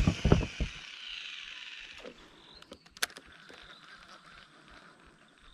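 Fishing reel during a cast: the spool whirs as line pays out, falling in pitch and fading over about two seconds. A sharp click comes about three seconds in, then a faint steady whir as the reel is wound in.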